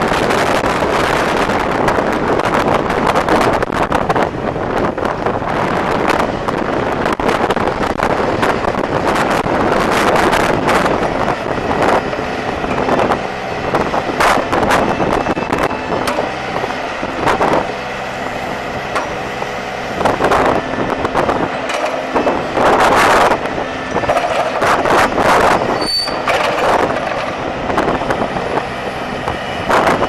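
Case 580 Super M backhoe's four-cylinder diesel engine running steadily, with gusty wind buffeting the microphone.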